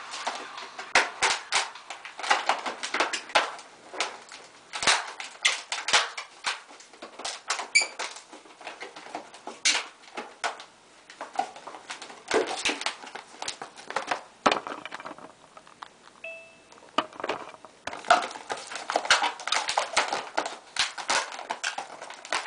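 Latex modelling balloons squeaking and rubbing as they are twisted by hand: an irregular run of short squeaks and creaks, briefly quieter about two-thirds of the way through.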